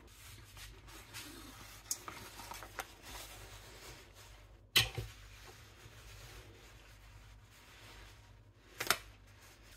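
Quiet handling sounds of a silicone baking mould and a cloth on a countertop: faint rustling and a few light taps, with two sharper knocks about five and nine seconds in.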